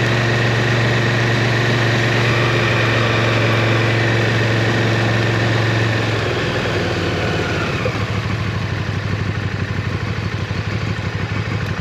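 KTM 1290 Super Duke GT's V-twin engine running at steady revs, then dropping about six seconds in to a lumpy, pulsing idle.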